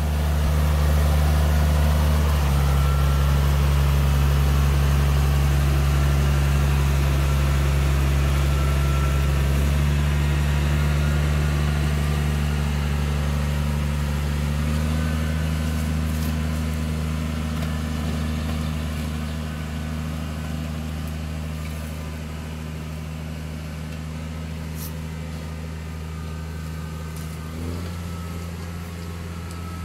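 Tractor engine running steadily while towing a trailed land grader through soil. Its low drone steps in pitch a few times and grows quieter in the second half.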